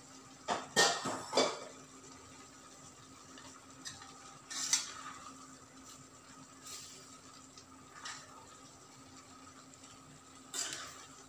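Steel spoon scraping and clinking against a stainless steel pan while stirring pasta through a thick sauce. The first burst of several clinks comes about half a second in, another comes around four and a half seconds, and the last near the end, over a faint steady hum.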